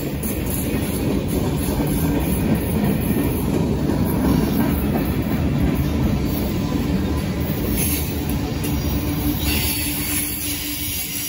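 CSX freight train cars rolling steadily past at close range: steel wheels running on the rails, loud and continuous, easing off slightly near the end.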